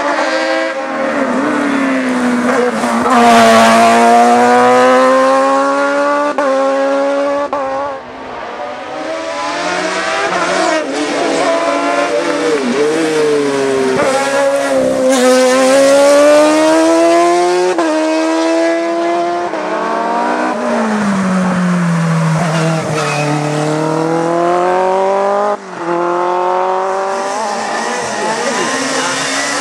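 Hillclimb race car engine under hard acceleration, the pitch climbing through each gear and dropping at the shifts, again and again. The engine lets off sharply about eight seconds in and once more near the end.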